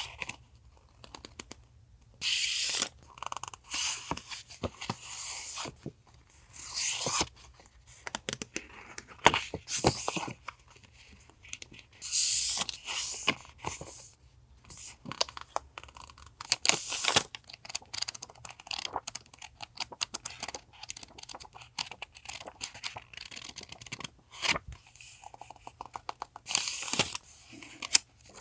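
Stationery packaging and paper goods being handled and opened by hand: irregular bursts of rustling and tearing, with small clicks in between.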